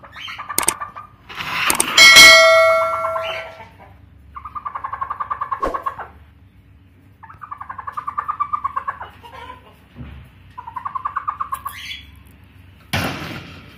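Hen laying an egg, giving three trilling calls, each a quick run of about eight pulses a second lasting one to two seconds. About two seconds in comes the loudest sound, a steady high tone lasting about a second and a half, and near the end there is a short burst of rustling noise.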